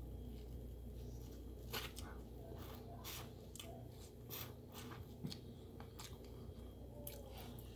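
Close-up mouth sounds of someone eating: irregular sharp, wet chewing clicks and smacks, a dozen or so, over a low steady hum.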